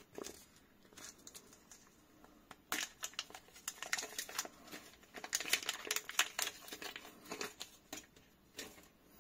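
Clear plastic bag crinkling and crackling in the hands as it is worked open to free a small metal fidget toy, in a dense run of crackles from about three seconds in until near the end.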